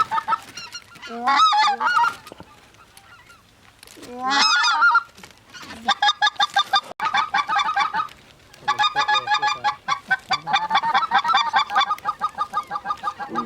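Goose honking and clucking: a few single drawn-out honks, then fast runs of short clucks at about eight a second.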